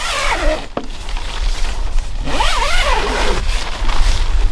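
An engine revving up and falling back twice, the longer rev about two seconds in, over a steady low rumble.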